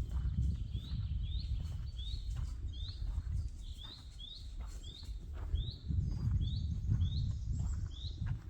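A songbird repeating one short, rising, high note about twice a second, over the low rumble of wind on the microphone.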